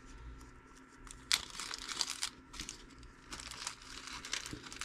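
A small clear plastic parts bag crinkling and rustling in the hands in irregular short crackles, the sharpest about a second in.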